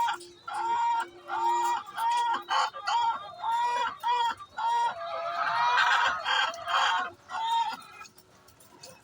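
Hen clucking in a rapid series of short, pitched calls, about two a second, the noise a hen makes before laying an egg. A longer, louder call comes about five seconds in, and the calling stops about eight seconds in.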